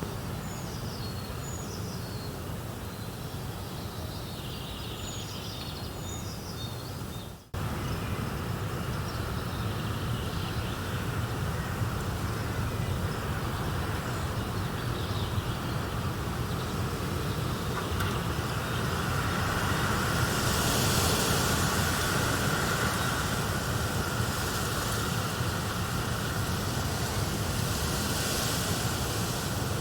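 Wind blowing with rustling leaves, a steady rushing wash with a low rumble. A few short bird chirps come in the first seconds. The sound drops out for an instant at about seven seconds, comes back louder, and the high rustle swells in the second half.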